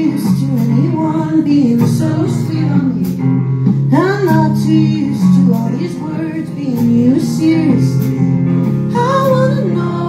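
A live band playing: a woman singing over electric guitars.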